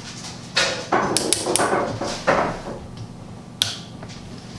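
Handling noise of small parts being picked up and fitted: a cluster of knocks, rustles and clicks about a second in, and one sharp click near the end.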